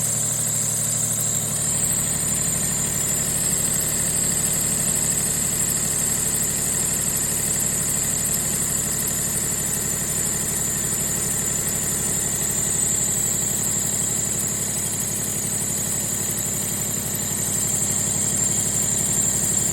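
Daihatsu Mira L275's three-cylinder engine running steadily at idle, with a steady high-pitched whine above the engine note; the owner presents it as an abnormal engine noise.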